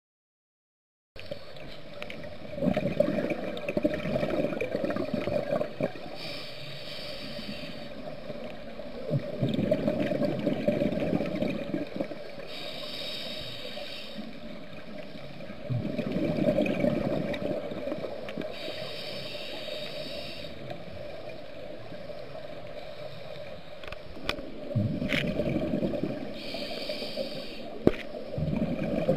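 Scuba diver breathing through a regulator underwater. A bubbling exhale of about three seconds alternates with a shorter hissing inhale, repeating about every six to seven seconds. A few sharp clicks come in the last few seconds.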